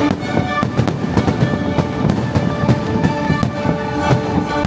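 Fireworks show: a rapid run of firework bursts, sharp bangs and crackle, over the show's musical soundtrack played on loudspeakers.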